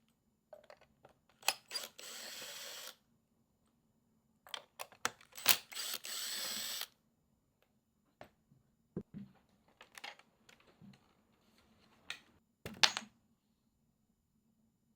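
Impact driver run in two short bursts of about a second each, backing out the screws that fix a chair seat from underneath, with clicks and knocks of handling between and after them.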